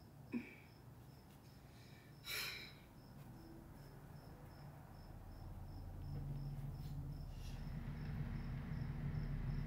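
Cricket chirping steadily at about three chirps a second. A brief soft rustle comes about two seconds in, and a low hum swells in from about halfway.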